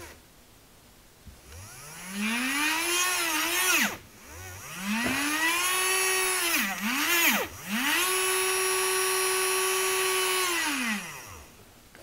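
Small DC motor of a cordless rotary multitool whining as it is pushed into spinning by hand, three times. On the first two runs the pitch rises, wobbles and sags as the motor falters. The last run holds a steady whine for a few seconds, then winds down. The motor will not start on its own and needs a push, which the owner takes for a fault in the motor, perhaps a burnt-out internal winding.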